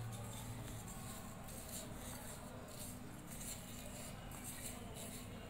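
Quiet rubbing and scraping of fingers mixing puttu flour in a small steel plate, over a low hum that fades about a second in.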